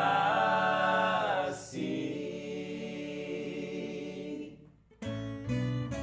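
Male voices singing the last words of a sertanejo song over acoustic guitars, the final note held and the chord fading away. About five seconds in, acoustic guitar playing starts up again.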